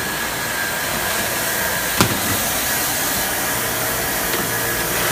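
Sanding-belt skiving machine running: a steady machine noise with a faint high tone through it, and one sharp click about two seconds in. A low hum joins past the middle.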